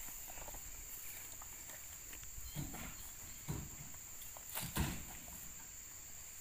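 Oil palm fruit bunches landing with dull thumps on the load in a truck bed as they are thrown up, a few of them about a second apart starting midway. A steady high insect drone runs underneath.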